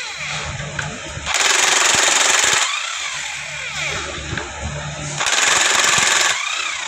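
Two loud hissing blasts, each lasting over a second, starting about a second in and again about five seconds in. A low steady hum and light clatter of parts run between them.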